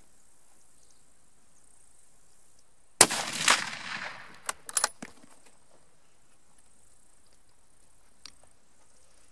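A single 7x57 mm Mauser rifle shot about three seconds in, its report trailing away over about a second, followed a moment later by a quick run of sharp clicks.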